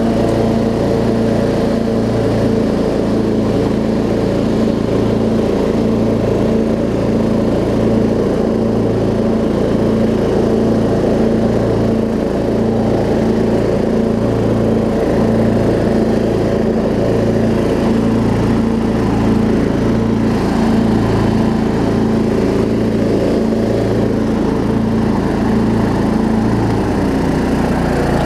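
Craftsman LT1750 riding mower's 17.5 hp Kohler engine running under load with the deck engaged, the blades driven by a new deck belt that now grips the electric PTO clutch. A steady engine hum with a slow, even pulsing beat; near the end the engine note drops slightly.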